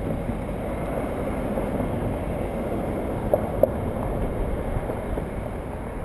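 Wind buffeting the microphone over the steady noise of passing car traffic, with two short clicks a little after three and a half seconds in.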